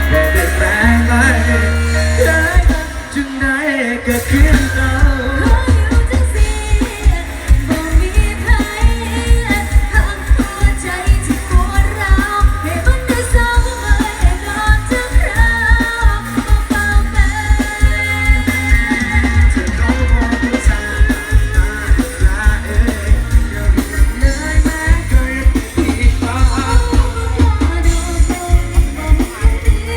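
Thai pop song with singing over heavy bass and a steady drum beat, played loudly through a sound system.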